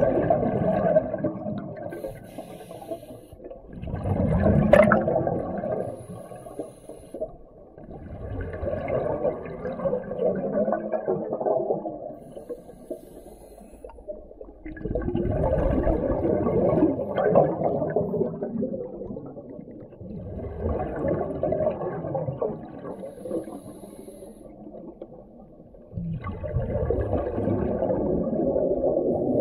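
A scuba diver's exhaled breath bubbling out of the regulator underwater: six bubbling bursts, each a few seconds long, every four to seven seconds, with quieter gaps between. A single sharp click about five seconds in.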